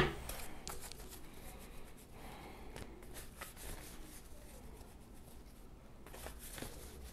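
A deck of tarot cards being shuffled by hand: faint rustling and light clicks of the cards sliding together, after one sharp knock at the very start.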